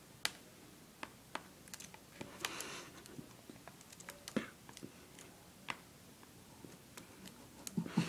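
Scattered light taps and clicks at irregular intervals, with a brief soft hiss about two and a half seconds in.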